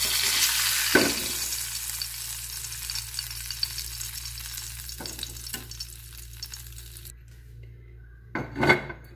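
Spice-coated fish fillet shallow-frying in oil in a pan, sizzling, as a metal spatula scrapes the pan about a second in to lift it out. The sizzle fades and then cuts off suddenly about seven seconds in, and a short, loud clatter comes near the end.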